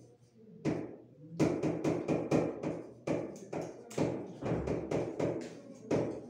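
Writing on a board: a run of sharp, irregular taps and knocks, about two to three a second, as the equation is written out stroke by stroke.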